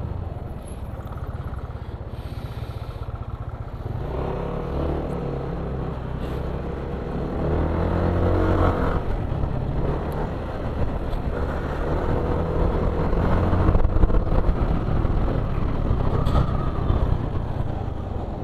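Yamaha automatic scooter's engine running as it is ridden at low speed, revs rising and falling with the throttle, louder about halfway through and again a little later.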